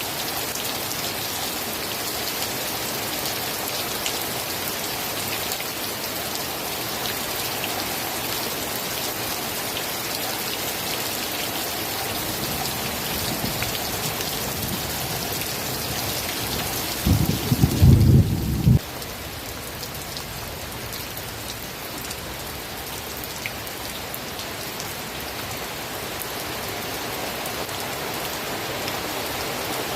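Steady rain falling with an even hiss. A brief loud low rumble of thunder comes a little past the middle and cuts off abruptly.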